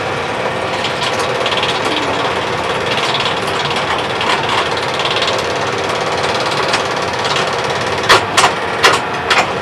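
Home-movie film projector running with a fast, steady mechanical clatter. Near the end come about four sharp knocks as the film catches in the projector where its perforations are torn, which the owner puts down to teeth missing off the film.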